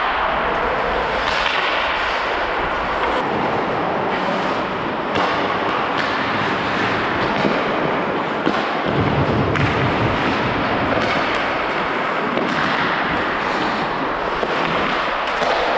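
Ice hockey play heard up close on the rink: skate blades scraping and carving the ice, broken by sharp clacks and thuds of sticks, puck and bodies every second or two.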